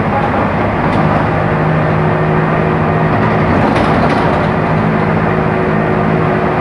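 Diesel engine of a Mercedes-Benz OF-1418 bus running steadily, a continuous drone with rattling rumble over it.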